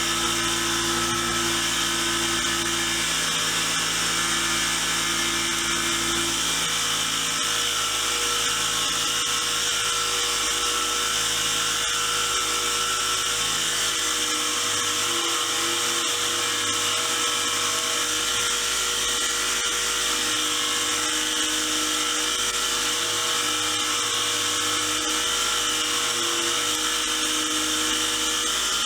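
A power tool running steadily as screwdriver shafts are cleaned on it.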